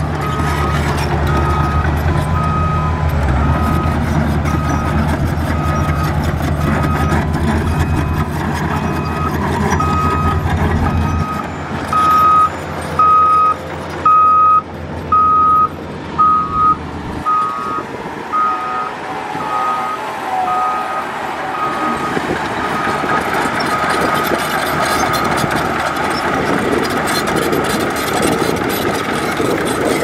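Reversing alarm on heavy earthmoving machinery beeping steadily, about three beeps every two seconds, over the low rumble of a diesel engine that fades away about halfway through.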